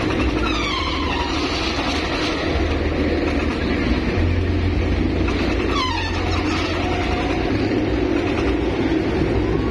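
Swinging pirate-ship fairground ride running: a steady loud rumble of machinery under a constant din of the fair, with riders' cries sliding down in pitch as the ship swings, about half a second in and again about six seconds in.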